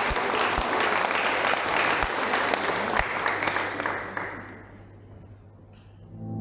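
Audience clapping, dying away after about four seconds.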